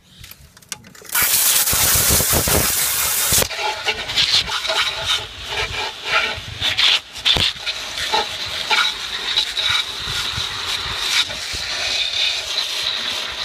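Garden hose spraying water, starting with a loud hiss for about two seconds and then spattering and splashing onto a Honda push mower, soaking it before a wet start.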